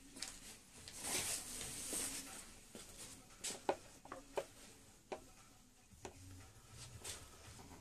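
A small precision screwdriver working the tiny screws of a Samsung Galaxy Note 2's plastic midframe: a soft scrape a little after a second in, then a run of sharp small clicks of the metal tip on screws and plastic.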